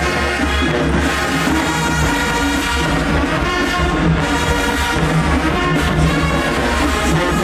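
Show-style marching band playing a brass-heavy tune: trumpets and trombones holding chords over a steady low bass line.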